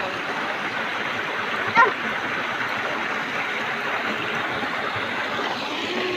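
Shallow mountain stream rushing steadily over rocks below a small waterfall. A brief high-pitched sound cuts in about two seconds in, the loudest moment.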